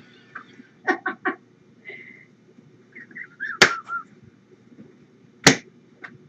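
Novelty laughing toy cat in the pause between laugh bursts, catching its breath with three short gasps about a second in, then a few brief squeaky tones. Two sharp clicks come through, the louder one near the end.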